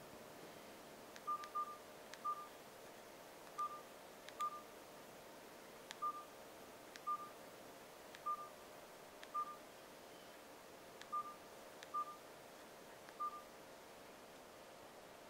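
Nokia 3310 (2017) keypad tones: a short, quiet beep at one pitch with each press of the navigation keys, each with a light click of the key. There are about a dozen presses at irregular intervals of roughly a second, stopping near the end.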